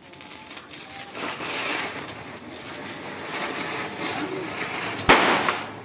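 Diwali firework hissing for several seconds, then a single sharp firecracker bang, the loudest sound, near the end.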